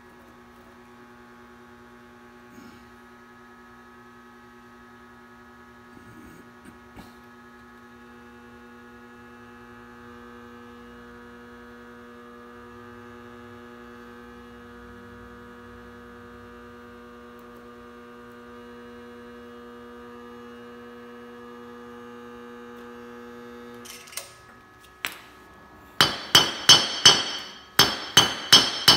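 Homemade 3 kW induction heater humming steadily, several tones at once, while it heats a steel bolt in its coil. The hum cuts off about 24 seconds in, a couple of clicks follow, and near the end a hammer strikes the red-hot bolt on a steel anvil with loud, ringing blows, about three a second.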